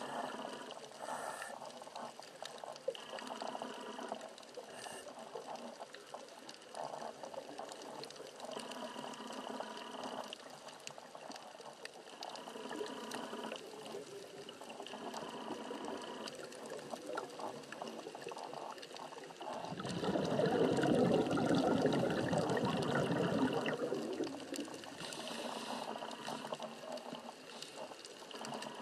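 Underwater bubbling and gurgling heard through a camera housing, typical of a scuba diver's regulator breathing. A long, louder rush of exhaled bubbles comes about two-thirds of the way through.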